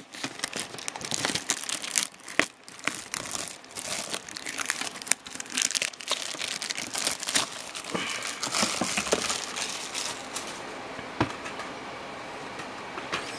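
Plastic shrink wrap crinkling and tearing as it is pulled off a cardboard collector box, busy for the first eight seconds or so and thinning to a few scattered crackles near the end.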